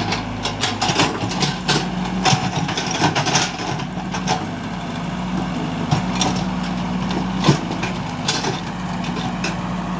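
Heavy machine's engine running steadily, with frequent clicks and knocks over it and one sharper knock about seven and a half seconds in.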